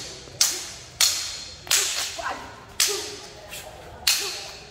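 Sabre and sword blades clashing in sparring: a quick series of sharp strikes, roughly one a second with a few lighter taps between, each ringing briefly as it dies away.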